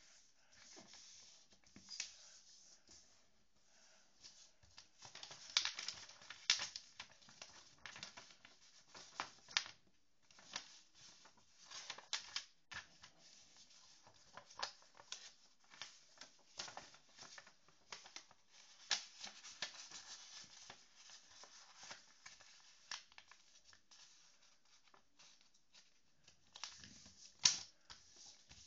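A sheet of paper being folded and handled: irregular rustling and crinkling, with frequent short, sharp crackles.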